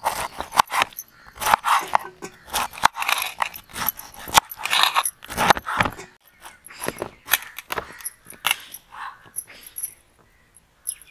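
Knife slicing through ripe pineapple on a wooden chopping board: a run of irregular crunching cuts, with the blade knocking on the board, dying away shortly before the end.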